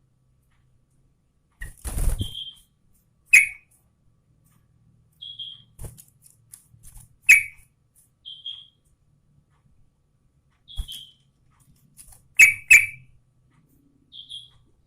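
Yellow-vented bulbul (trucukan) calling: short, separate whistled chirps spaced a second or two apart, broken by a few louder, sharp notes, two of them in quick succession near the end. About two seconds in there is a brief rustling burst.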